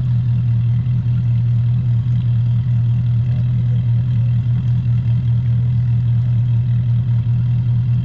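Engine running steadily at an even speed: a constant low drone.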